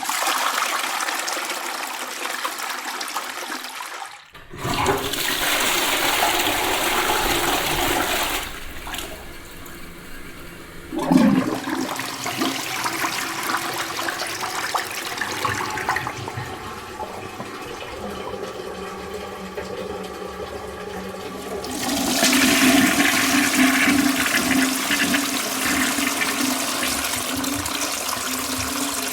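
Toilets flushing in succession: rushing, gurgling water, one flush after another. A sudden knock comes about eleven seconds in, followed by a quieter steady run of water, and a louder flush starts about two-thirds of the way through.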